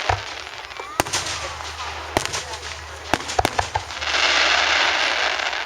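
Fireworks going off: several sharp bangs scattered about a second apart, then a dense crackling spray of sound lasting about a second and a half near the end.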